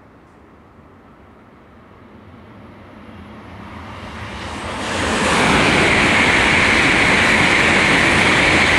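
E2 series Shinkansen passing at high speed: a rushing rumble that swells over a few seconds, turns loud about five seconds in and holds steady as the train goes by.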